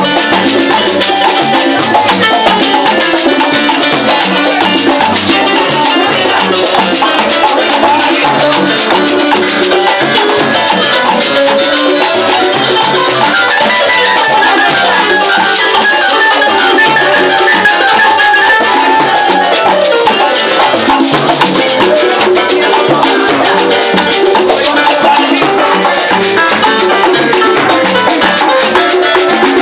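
Live salsa band playing at full volume, driven by timbales and hand drums, with brass over the top.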